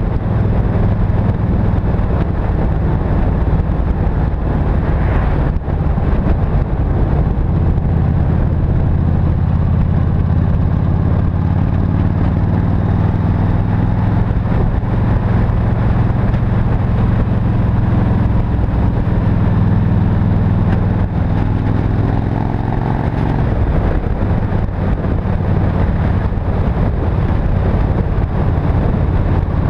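Yamaha XVS 1300 V-twin motorcycle engine running steadily through Cobra slip-on exhausts while riding, heard from on the bike. The engine note shifts in pitch for a few seconds past the middle.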